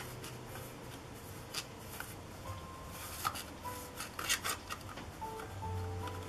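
Plastic petal lens hood handled and turned in the hands: light plastic clicks and rubbing, irregular, with a cluster of sharper clicks midway. Soft background music with long held notes underneath.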